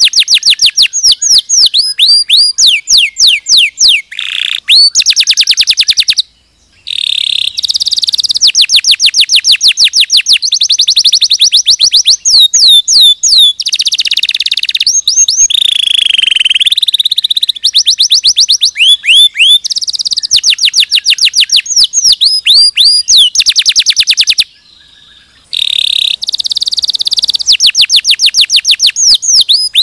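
Domestic canary singing a loud, continuous song of rapid trills and runs of quick repeated whistled notes, many sweeping down in pitch, with two brief breaks about six and twenty-five seconds in.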